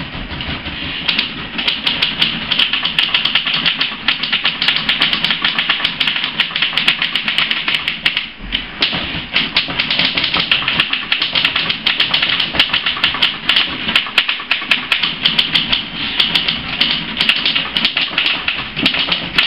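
Three manual typewriters being typed on at once: a dense, irregular clatter of overlapping keystrokes. It thins briefly about eight seconds in.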